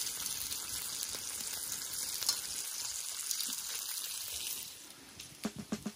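Pork belly and cheese sizzling in a hot pan, a steady hiss with small crackles of spitting fat. The sizzle dies down about four and a half seconds in, leaving a few scattered pops.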